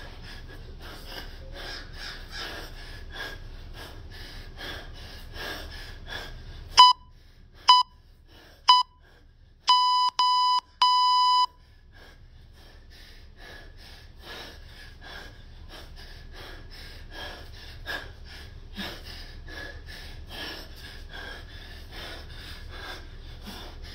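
Hard rhythmic breathing from a man snatching a 24 kg kettlebell, about two breaths a second. About seven seconds in, an electronic timer gives three short beeps about a second apart, then three longer beeps, before the breathing picks up again.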